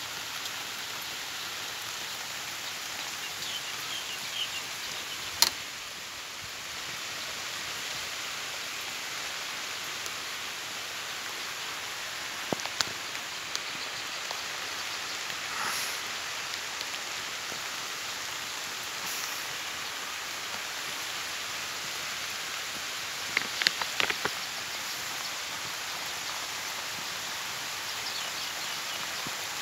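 Steady rain falling on a field of leafy crops: an even hiss with scattered sharp taps of drops, one about five seconds in, a couple near thirteen seconds and a cluster near twenty-four seconds.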